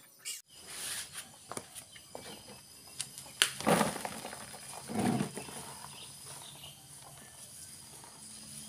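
Fermented grass silage being pulled by hand out of a tipped plastic drum and dropped into a plastic basin: rustling with scattered clicks and soft thumps, loudest between about three and a half and five seconds in.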